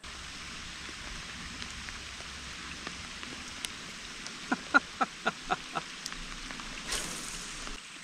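Steady summer rain pattering on the river surface and kayak. About halfway through, a quick run of about six short notes, each falling in pitch, sounds over it.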